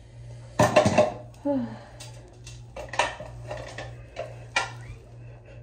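Hard objects clicking and clinking: a quick cluster of sharp knocks about half a second in, then single clicks every half second or so, over a steady low hum.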